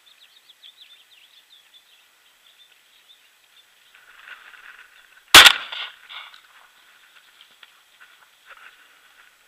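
A single 20-gauge shotgun blast, very loud and close, about five and a half seconds in, with a short echo trailing off. Faint, high chirping runs underneath throughout.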